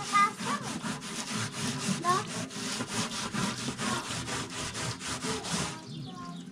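Scouring pad scrubbing a round metal mesh tray by hand, a quick run of rasping back-and-forth strokes, about four a second, that stops near the end.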